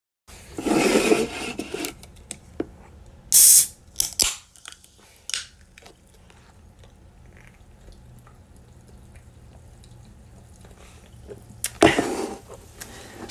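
Aluminium soda can being handled and opened: a short, sharp high hiss about three and a half seconds in, followed by a few clicks. Then a faint steady hum, and a loud, noisy burst near the end.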